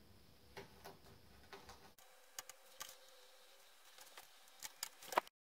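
Faint, scattered light clicks and taps of a splinter-guard strip being laid by hand along an aluminium saw guide rail, with a sharper click just after five seconds before the sound cuts out abruptly.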